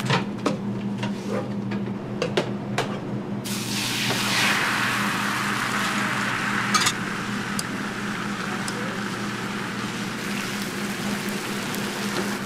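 A few sharp knocks, then beaten egg hits a hot flat-top griddle about three and a half seconds in and starts sizzling loudly. The sizzle slowly settles as the egg spreads and cooks, over a steady low hum.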